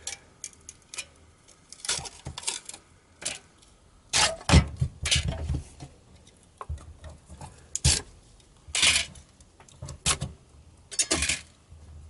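Thin metal sheets clinking and scraping as they are handled and slid between rubber-banded pineapple chunks, in irregular bursts, with a few dull knocks on a plastic cutting board.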